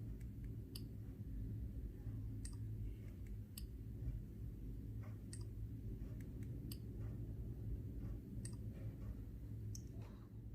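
Sharp single clicks from handling a Samsung Galaxy A30s smartphone, as in taps and button presses during fingerprint unlock tests. They come one at a time, irregularly, every second or two, over a steady low hum.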